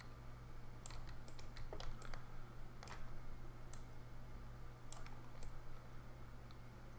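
About a dozen irregular clicks of a computer mouse and keyboard, over a steady low electrical hum.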